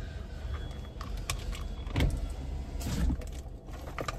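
Car engine idling, a steady low rumble heard from inside the cabin, with a few scattered clicks and rustles of small things being handled.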